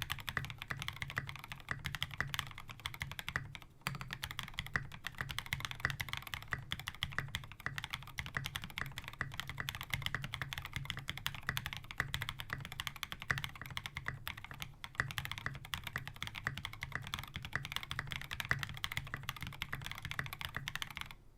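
Continuous fast typing on a mechanical keyboard with lubed NovelKeys Cream linear switches, a POM plate and case, and SA-profile keycaps: a dense stream of keystrokes with a brief pause about four seconds in, stopping just before the end.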